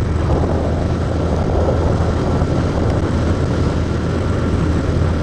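Motorcycle engine running steadily at cruising speed, with wind and road rush on the microphone.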